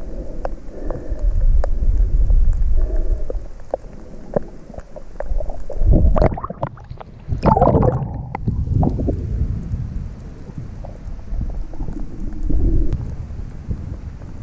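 Snorkeling sounds picked up by a camera held underwater: a steady low water rumble with scattered clicks and crackles, and a louder burst of splashing and bubbling about six to nine seconds in as the camera comes up near the surface.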